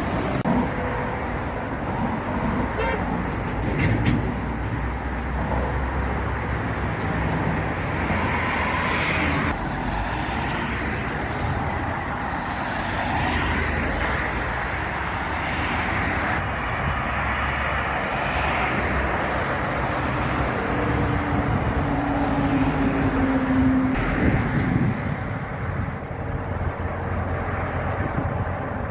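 Road traffic and vehicle engines running steadily, a mix of engine and tyre noise, with a low steady tone for a few seconds about three-quarters of the way through.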